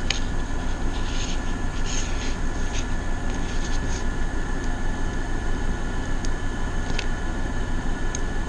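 Steady drone of two air conditioners running, with a few light clicks and scratchy scrapes in the first few seconds as a soldering iron works wires loose from a lipo battery pack.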